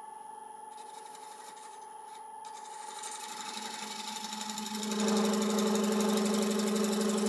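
Wood lathe running with a steady whine while a 1-inch scraper takes a pass across the face of a spinning laburnum bowl blank. The cutting noise builds from about three seconds in and is loudest from about five seconds in.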